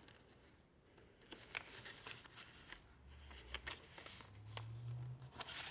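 Pages of a handmade paper junk journal being turned and handled: soft paper rustles with small, scattered taps and clicks.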